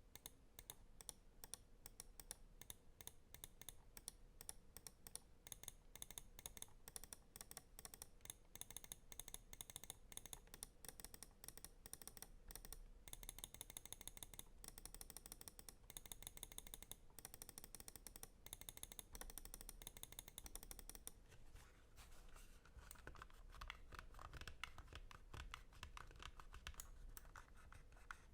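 Buttons of an Endorfy GEM Plus Wireless gaming mouse clicked in quick runs, giving quiet, sharp clicks. About 21 seconds in, the clicking changes to a denser, duller pattern, a different button or the scroll wheel.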